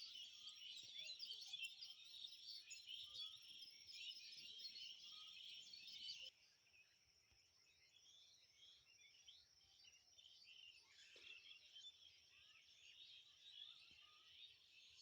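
Many small birds chirping in a dense chorus over a steady high trill. About six seconds in the sound drops suddenly, the trill stops, and fainter chirping carries on.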